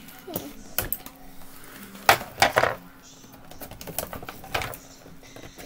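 Scissors snipping at packaging tape and plastic, a handful of sharp, irregular snips and clicks, the loudest cluster about two seconds in.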